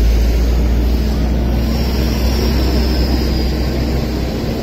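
Car engine idling close by: a steady low rumble that eases slightly near the end.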